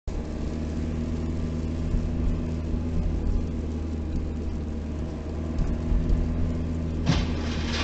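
Steady low drone of a car's engine and tyres, picked up inside the cabin by a dashcam while driving. About seven seconds in, a sudden louder burst of noise cuts in.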